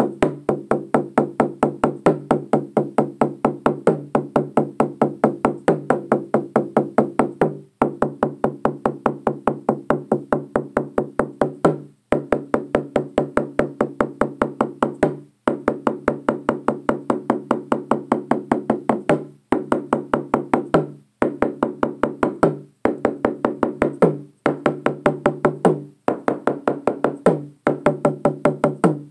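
Frame drum with a skin head struck with a padded beater in a fast, steady beat, each stroke ringing with a low tone, with brief pauses every few seconds.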